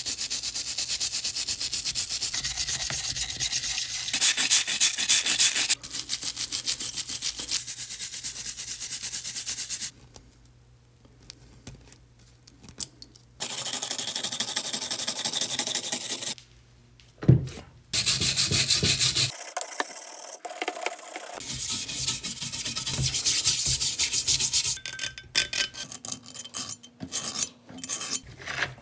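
Steel wire brush scrubbing the rusty threaded screw and jaw parts of an FPU bench vise in degreaser water, degreasing and de-rusting them. It goes in long bouts of quick back-and-forth strokes, broken by a few short pauses, and turns choppier near the end.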